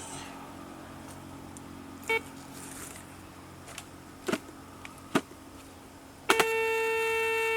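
Metal detector signalling a target: a brief buzzing tone about two seconds in, a couple of clicks, then a loud, steady buzzing tone starting near the end.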